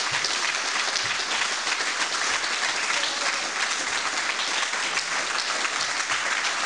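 A group of people clapping: steady, dense applause.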